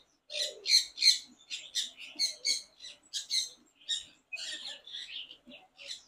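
Caged songbirds chirping: a quick run of short, high chirps, about three a second.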